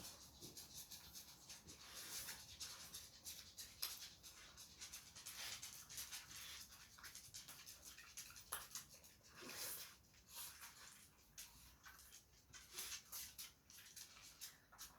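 Faint, irregular clicking and scratching of dogs' claws on a hard floor as the dogs walk about.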